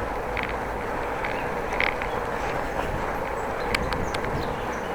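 Steady wind and rolling noise from a bicycle being ridden, with scattered short high clicks or chirps through it.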